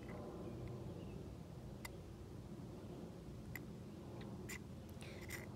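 Quiet steady background with a few short, sharp clicks, about four spread through the second half.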